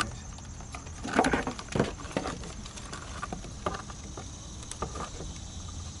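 Scattered light clicks and rustles of a plastic fuse box cover being handled with gloved hands, a few louder knocks near the start.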